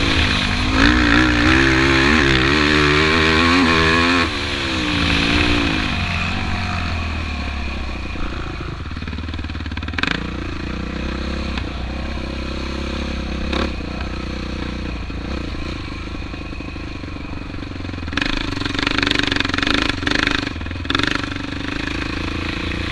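Sport quad's engine revving hard and wavering in pitch as it is ridden fast over a dirt track. About four seconds in it eases off, falling in pitch to lower, steadier running, with a couple of sharp knocks. Near the end it revs up again in a rougher, rattling burst.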